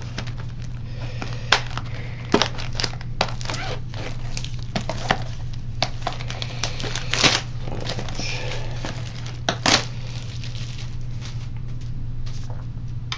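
Plastic shrink-wrap being torn and crinkled off a trading-card booster box: irregular crackling and rustling with a few louder crackles, over a low steady hum.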